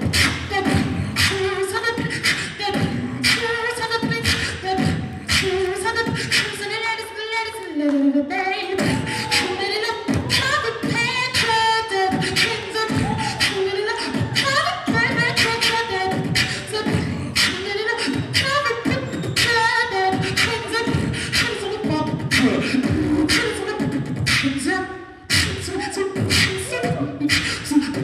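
Live beatboxing amplified through a handheld microphone: a fast run of vocal kick, snare and hi-hat clicks, mixed with hummed bass and pitched vocal lines and slides. It breaks off briefly about 25 seconds in.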